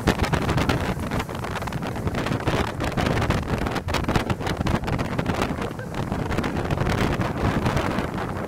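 Wind buffeting the microphone on a moving boat, with a dense low rumble underneath.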